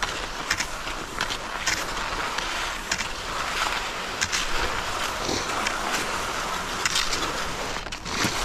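Cross-country skis gliding over groomed snow with a steady scraping hiss, broken by short crisp crunches of ski strides and pole plants at an uneven rhythm.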